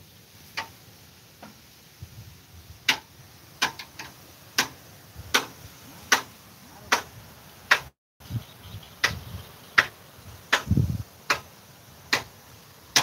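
Sharp ticks repeating at a steady rate, about one every three-quarters of a second, with a dull low thud near the end.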